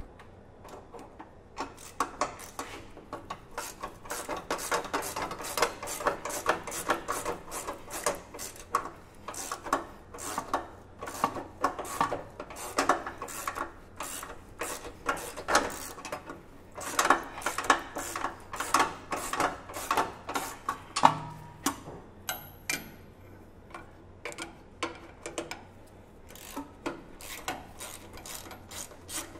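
Socket ratchet on a long extension clicking in repeated runs as it backs out the 14 mm bolts of the rear shock's upper mounting flange on a Land Cruiser. There is a short pause about three-quarters of the way through.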